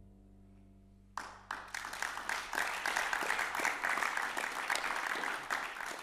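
The band's last held chord fades out. About a second in, audience applause breaks out, dense and steady.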